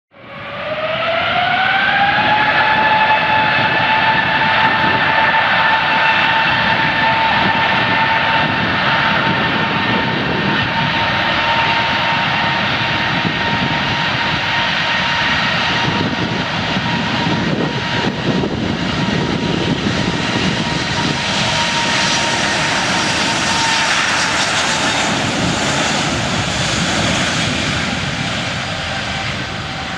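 Airplane jet engine spooling up: a whine rising in pitch over the first two seconds, then holding steady over a loud rushing roar. The whine fades out about 24 seconds in while the roar carries on, easing off near the end.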